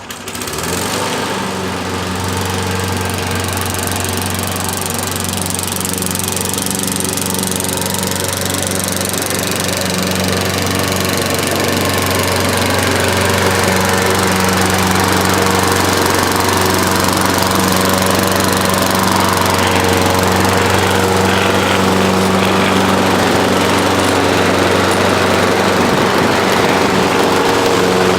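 Gasoline lawn mower engine running at a steady speed, growing somewhat louder about twelve seconds in.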